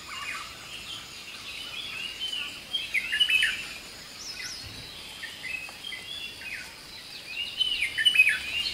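Birds chirping and calling, with busier bursts of quick curved notes about three seconds in and again near the end, over a faint steady hiss.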